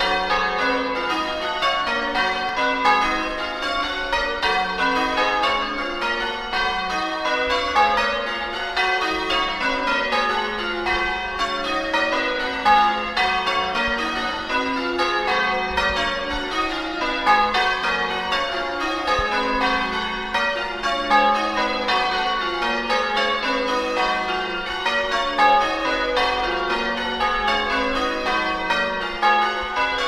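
A peal of church bells ringing, many bells struck one after another in a rapid, steady sequence with their tones overlapping.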